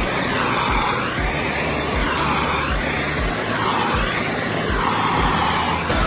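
Loud hissing noise whose pitch sweeps up and down about once every second and a half, over background music with a steady low beat.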